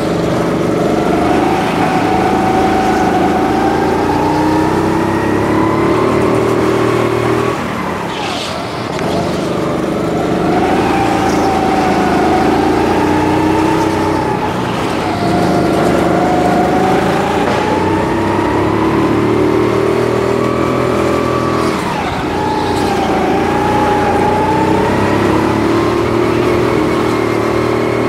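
Go-kart motor heard on board, running continuously under load, its pitch rising and falling with speed. It drops off twice, about a third of the way in and again about three quarters in, as the kart slows for corners, then picks up again.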